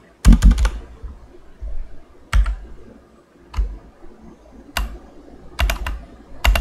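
Keystrokes on a computer keyboard: a quick run of several key presses at the start, then single presses spaced about a second apart, and another short run of presses near the end.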